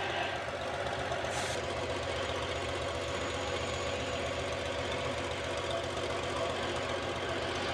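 Diesel engine of an old Lima crawler dragline running steadily with an even, rhythmic beat. A brief hiss about a second and a half in.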